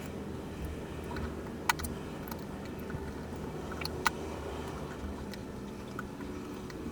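A few small sharp clicks of tools on the parts of a Casio analog wristwatch being taken apart, two of them plainer than the rest, about two and a half seconds apart, over a steady low hum.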